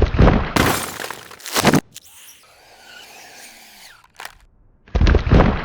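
Cartoon sound effects: loud bursts of rushing, crashing noise with a quieter stretch in the middle and a single click about four seconds in.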